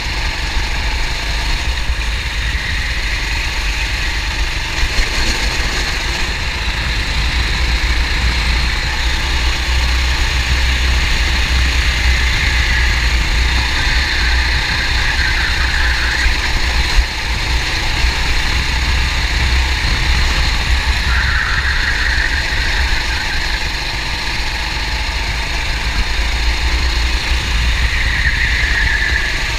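Racing kart engine running hard, heard from a camera mounted on the kart, its note swelling and easing several times as the kart speeds up and slows through the corners over a steady low rumble. A single sharp knock about halfway through.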